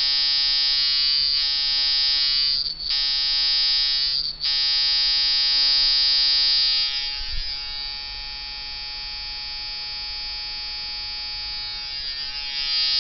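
Brass-framed coil tattoo liner machine buzzing steadily at 3.5 volts. It dips briefly twice, around 3 and 4 seconds in, and runs quieter from about 7 seconds until near the end.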